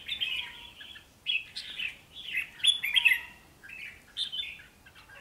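Red-whiskered bulbuls singing against each other, a string of short, quick warbled phrases about every half second to second.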